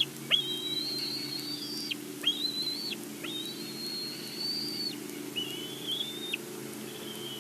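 Bald eagle calling: a series of about five high whistled calls, each opening with a quick upward sweep and held for roughly half a second to a second and a half before dropping off, over a faint low steady hum.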